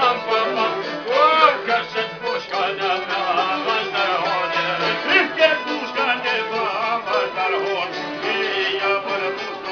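Music: a wavering, ornamented melody line over steady accompaniment.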